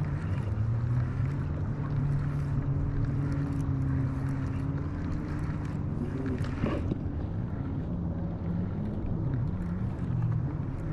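A motorboat's engine running steadily, a low drone whose pitch drifts slightly, with a brief sharp sound about two-thirds of the way through.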